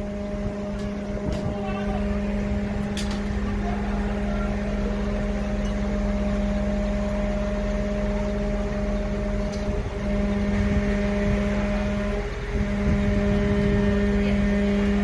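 Fire engine's motor running with a steady low hum, which breaks briefly twice in the second half.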